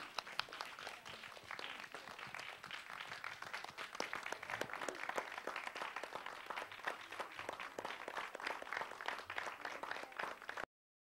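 Audience applauding, many hands clapping at once, which cuts off suddenly near the end.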